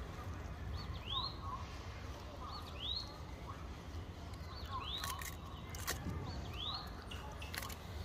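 A bird calling in the forest: a short, rising, high chirp repeated about every two seconds, with a few soft clicks and a low steady rumble underneath.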